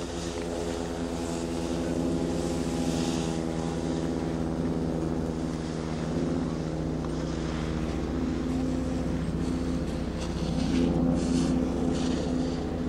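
Steady mechanical drone of a running motor, holding one pitch and shifting slightly about ten seconds in, with a few brief rushes of hiss.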